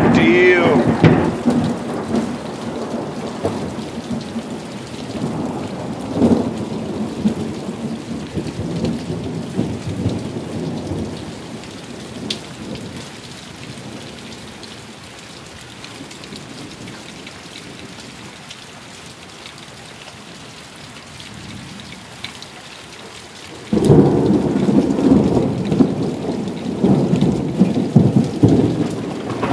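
Thunder rumbling over steady rain. The first long peal fades away over about fifteen seconds, leaving the hiss of rain. Near the end, a sudden loud clap sets in and keeps rumbling.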